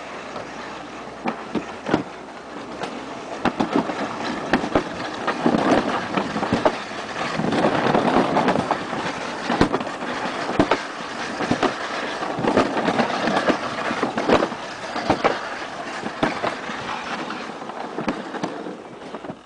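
Plastic sled sliding down a concrete toboggan chute: a continuous scraping rumble with frequent sharp knocks. It grows louder through the middle stretch of the ride.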